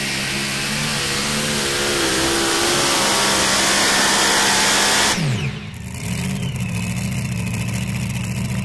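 Supercharged Super Mod two-wheel-drive pulling truck's engine at full throttle hauling the sled. About five seconds in the throttle is chopped: the pitch falls sharply and the engine settles to an idle as the pull ends.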